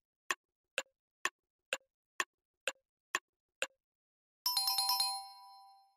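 Clock-style ticking sound effect: eight even ticks, about two a second. Then, about four and a half seconds in, a quick run of bright chime notes that rings on and fades.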